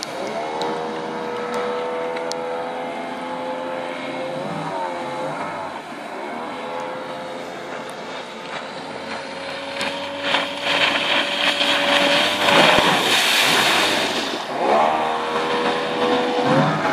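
Mercury 40 hp two-stroke outboard motor on a mini boat running at speed, its pitch held steady, then dipping and climbing back again several times as the throttle comes off and on. A louder rushing noise swells over it a little past the middle of the run.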